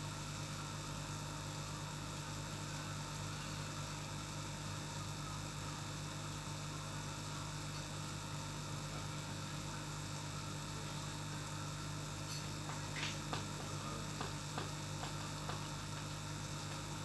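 Steady electrical hum of an aquarium air pump with air bubbling through the tank, and a few faint clicks about three-quarters of the way through.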